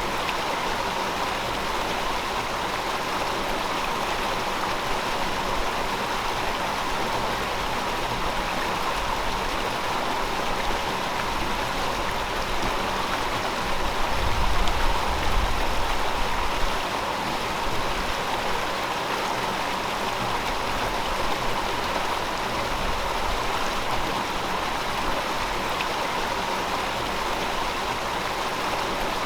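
River water flowing in a steady, even rush. A brief low rumble swells about halfway through.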